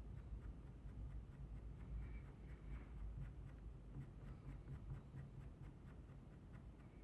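Faint scratching and tapping of a pastel pencil drawing on Pastelmat paper, in short, irregular strokes over a low hum.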